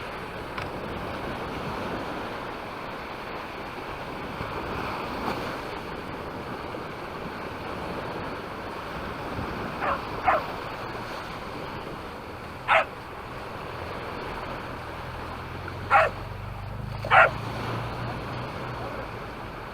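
Waves breaking on the shore and wind on the microphone form a steady wash. A dog barks five times in the second half: twice in quick succession, then once, then twice more.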